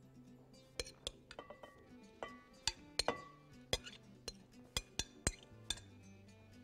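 A spoon clinking and scraping against a glass mixing bowl about a dozen times in an irregular run as spinach salad is worked out of the bowl. The clinks stop near the end, and soft background music plays underneath.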